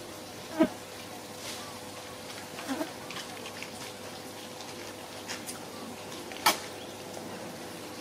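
Outdoor ambience of insects buzzing, with a steady hum underneath. Two short, sharp sounds stand out, one just after the start and one about three-quarters through.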